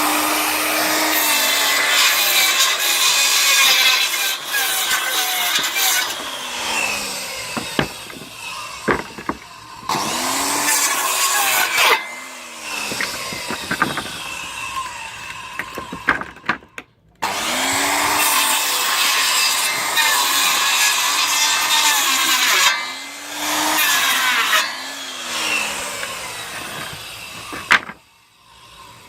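Makita 5704R circular saw, a 1200 W motor, cutting through pallet wood in several separate cuts. Each cut starts with the motor's whine rising and the blade rasping loudly through the boards, then the whine falls as the trigger is released. The last cut stops shortly before the end.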